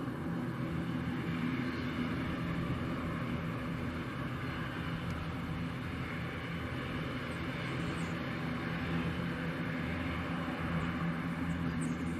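Airbus A319-115 corporate jet's twin CFM56 turbofan engines running at idle thrust as it taxis: a steady low hum with a hiss above it.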